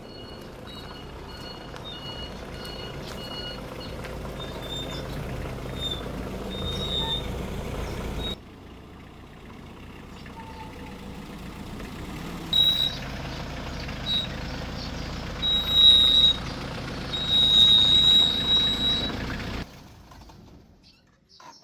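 A motor vehicle running close by and growing louder, with a repeating high electronic beep sounding over it. The noise cuts off abruptly about eight seconds in, builds up again with louder beeps, and stops shortly before the end.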